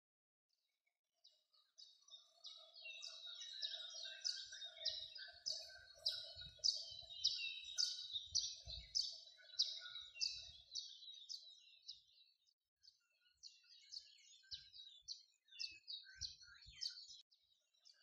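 Small songbirds chirping: a quick, even run of high, downward-sweeping chirps, about three a second, that starts a second or two in and thins to scattered calls in the second half. A few soft low thumps come in the middle and near the end.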